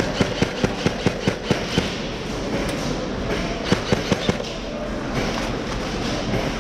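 Airsoft gunfire: a string of about nine sharp snaps in the first two seconds, roughly four a second, then a quicker burst of four a little past halfway, over a steady hall ambience.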